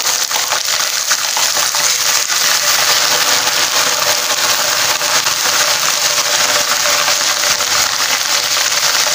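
Hot oil sizzling and crackling hard in a kadhai with frying onions, just after wet ginger-garlic paste has gone into it. The water in the paste sets the oil foaming and steaming, a dense, steady spitting sizzle.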